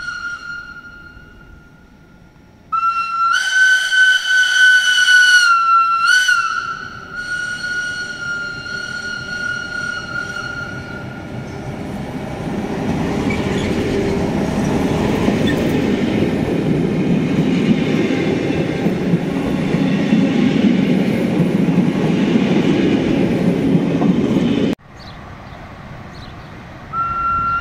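Trains passing through a station. A long, steady, high-pitched squeal is loudest for a few seconds near the start and then fades. After it, the BFe 4/4 railcar and its old coaches roll past close by with a low rumble. The rumble cuts off abruptly near the end, and the high tone starts again just before the end.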